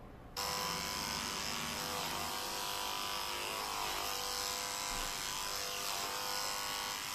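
Electric dog grooming clipper running steadily while trimming a Maltese's coat, a level hum with several pitches that starts abruptly about half a second in.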